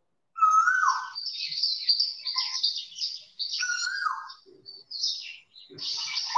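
Recorded call of an Asian koel (koyal), played back: repeated calls around one pitch with higher twittering chirps behind them. It breaks off briefly twice and starts again.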